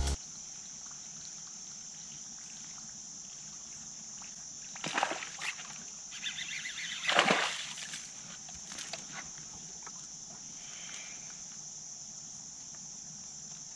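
A small hooked fish splashing at the water's surface as it is reeled in, with the two loudest splashes about five and seven seconds in. A steady high-pitched insect chorus runs underneath.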